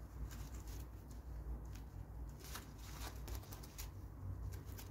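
Rusty pliers worked in gloved hands: irregular dry clicks and scrapes from the metal jaws and pivot, with the rub of the gloves, over a low steady hum.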